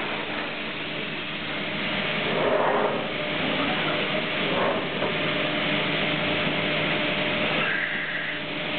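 Multicam CNC router running, a steady hum and hiss. Two short louder swells come about two and a half and four and a half seconds in, and a brief high tone sounds near the end.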